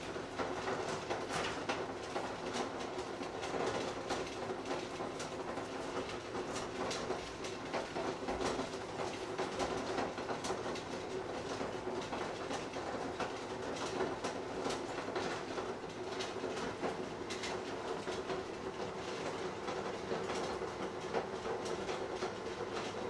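Covered pots boiling hard on the stove: a steady rumbling bubble with frequent irregular clicks and rattles.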